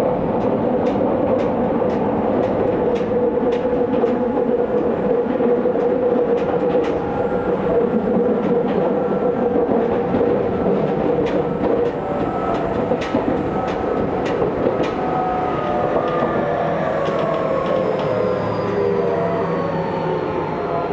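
Tokyu 2000 series electric train running, heard from inside the carriage: a steady rumble and drone with scattered clicks of the wheels over rail joints. From about halfway on, the motor tones fall slowly in pitch as the train slows.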